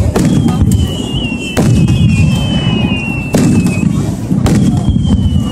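Fireworks display: about four aerial shells burst with sharp booms, one every second or so, over a heavy steady rumble. A long, slowly falling whistle runs through most of it and starts again near the end.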